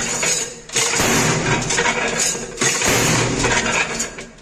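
Soap-stamping press working a soap bar: loud machine noise in two stretches, the longer lasting about three seconds and dying away near the end, over a low steady hum.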